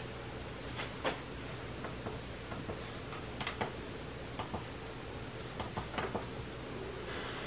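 Faint, irregular clicks of a computer monitor's front-panel buttons being pressed, about a dozen in all, as its on-screen menu is stepped through to change the input source. A low steady hum runs underneath.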